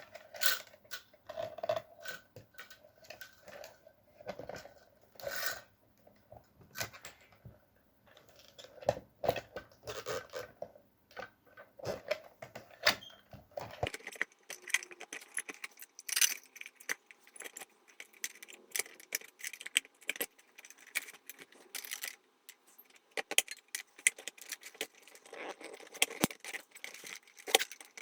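Irregular clicks, rattles and knocks of plastic and metal fuel pump assembly parts being handled and pushed back together.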